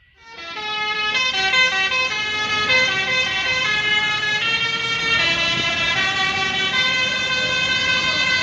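Intercity bus 'telolet' horn, a set of air-horn trumpets playing a melody: several notes sound together as a chord and step from one pitch to the next. It starts suddenly and is loud.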